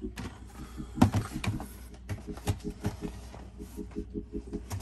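Cardboard trading-card collection box being picked up and turned over, with knocks and scrapes of cardboard and hands against a wooden table, the sharpest knock about a second in. A faint low pulsing repeats about six times a second underneath.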